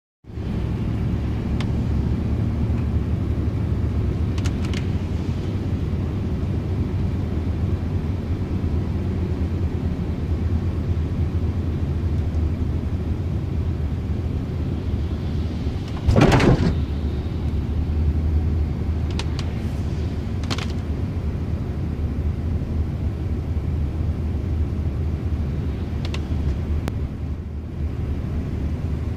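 Steady low road rumble of a car driving on a wet road, heard from inside the car. About halfway through there is a louder whoosh that swells and fades over about a second, and a few faint ticks are scattered through.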